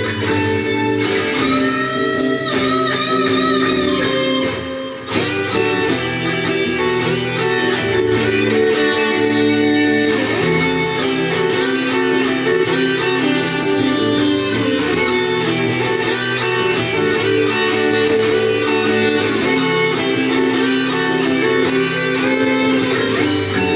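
Electric guitar playing a metal arrangement of a rock song, with held notes shaken in vibrato a couple of seconds in and a brief drop-out about five seconds in.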